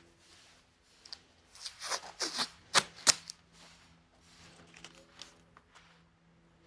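Short scratching and tapping strokes of a marker being drawn on tape to mark a line, clustered in the first half with two sharper strokes, then a few faint ticks. A faint steady hum lies underneath.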